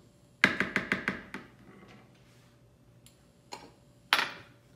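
Kitchen utensil tapping quickly about six times against a food processor's bowl, knocking off the last of the crème fraîche, then a light knock and a louder one near the end.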